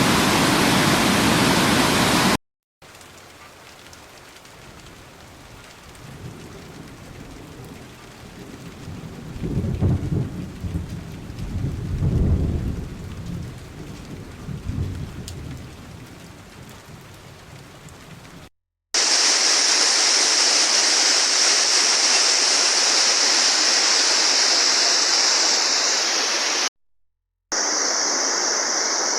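Steady roar of a waterfall, broken by edit cuts. In between is a quieter stretch of rain with a low rumble swelling and fading about ten to thirteen seconds in. The loud rush of falling water then returns with a steady high hiss over it.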